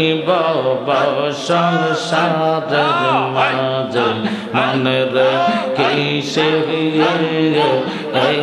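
Men chanting a Bengali zikr through microphones and a PA. A lead voice sings rising and falling melodic phrases over a steady, low, sustained group chant.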